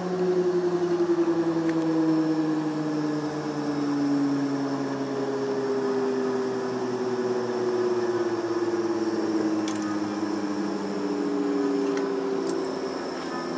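Embraer 145's rear-mounted Rolls-Royce AE3007 turbofan heard from inside the cabin at low taxi power, a steady whine and rush that slowly falls in pitch as the engine spools down.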